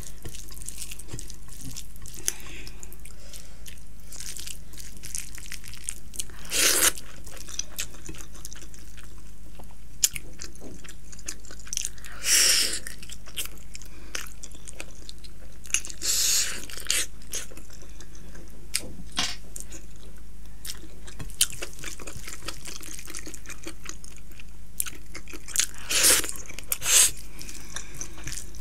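A person eating rice and curry by hand close to the microphone: chewing and mouth sounds with small clicks, and a few short, louder sounds spaced through, the loudest near the end, over a steady low hum.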